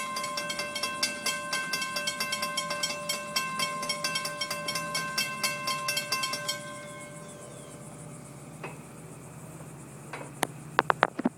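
Railroad grade-crossing bell ringing in rapid, even strikes while the crossing gates lower, falling silent about six and a half seconds in. After that only a faint steady hum, with a few sharp clicks near the end.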